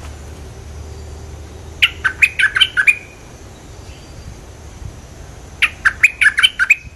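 A bulbul singing two short bursts of quick, bubbly notes, each about a second long, one about two seconds in and one near the end.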